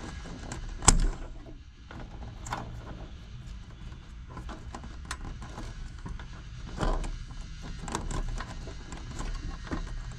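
Scattered small clicks, knocks and rattles of hands working on a PTAC unit's wiring and spade terminals, with one sharp click about a second in.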